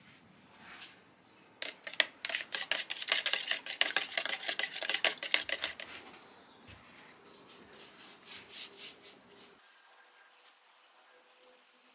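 A spoon stirring and scraping quickly inside a plastic tub, a dense run of clicks and scrapes lasting about four seconds. After that come softer swishing strokes of a paintbrush laying stain onto a wooden tabletop.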